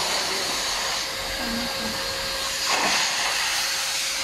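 Electric air blower running as a PVC inflatable horse fills with air: a steady rushing hiss with a faint steady whine, swelling briefly louder about three seconds in.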